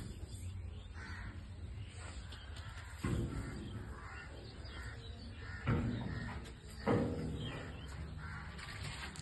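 Crows cawing a few times, in separate short calls spread over several seconds.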